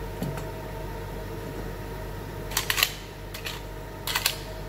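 Pistol reload by hand: a magazine pushed up through the magwell of a CZ pistol and seated, giving short clusters of sharp metal clicks and clacks in the second half. A steady fan-like hum runs underneath.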